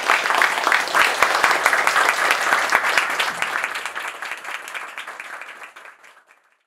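Small audience applauding, a dense patter of many hands clapping that fades out over the last few seconds.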